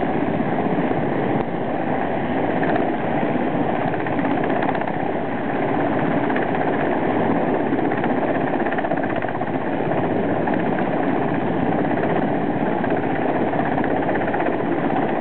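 Helicopter hovering, its rotor and engine running with a steady, loud, fast-fluttering drone.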